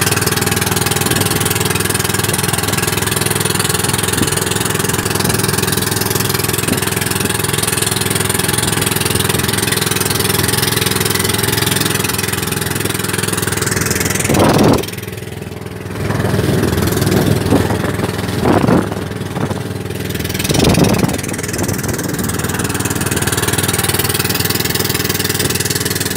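Engine of a Filipino outrigger boat (bangka) running steadily under way, a steady drone. A little past the middle it dips briefly and a few short rushes of noise break in.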